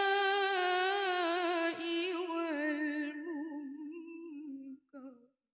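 A teenage girl's voice in melodic Qur'anic tilawah recitation, holding the drawn-out end of the word 'bil-fahsha'' as one long note. Vocal ornaments run through the note as it slowly falls in pitch and fades, with a short closing note near the end.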